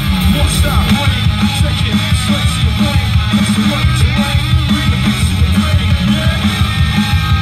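Rock music with a fast, steady beat, loud throughout.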